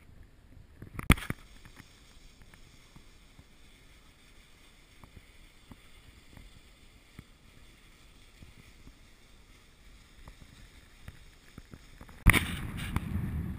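Cross-country skis sliding in a snow track, a soft scraping with faint ticks of pole plants, picked up by a body-mounted camera. A sharp knock comes about a second in, and near the end a sudden, louder rushing noise takes over.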